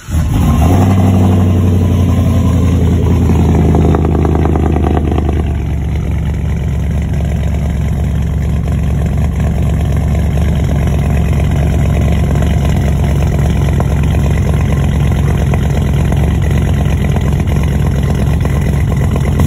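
Cammed 2006 Chevy Silverado V8 starting up and idling through a loud exhaust with 3-inch piping from the exhaust manifolds. It runs at a higher, louder idle for about five seconds, then settles to a lower steady idle.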